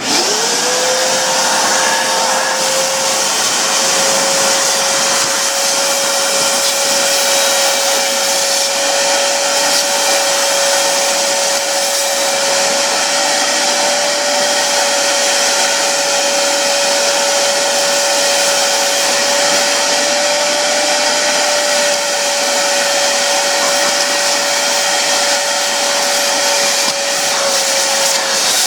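Milling machine starting up, its whine rising at once to a steady pitch, then running steadily with a hissing noise while milling cast iron.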